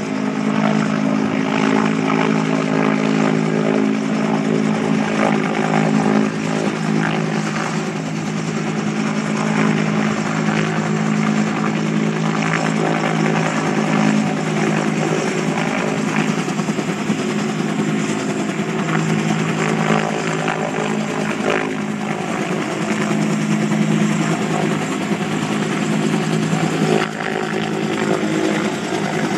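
Loud, steady engine drone holding an even pitch, with a brief dip in level near the end.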